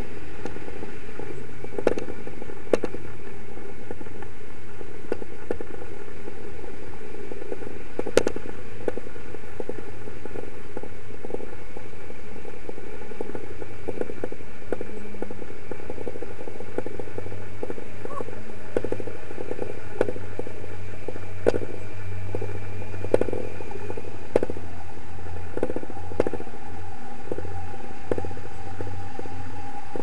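Steady rush of wind over a camera microphone in paraglider flight, with scattered, irregular clicks.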